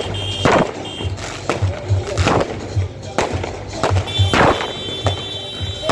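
Aerial fireworks bursting overhead: a string of sharp bangs, roughly one every half second to a second, over music with a pulsing bass beat.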